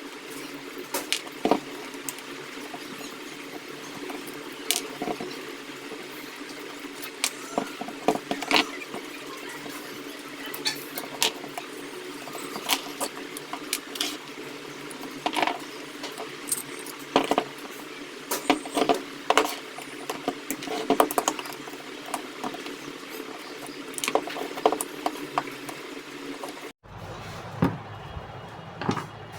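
Irregular metallic clinks, taps and knocks of hand tools and small fan parts being handled during a table-fan motor repair, over a steady low hum.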